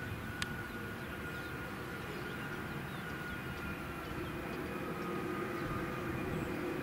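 Boeing 757's jet engines on final approach: a steady rumble with a thin whine that slowly drops a little in pitch. A single sharp click about half a second in.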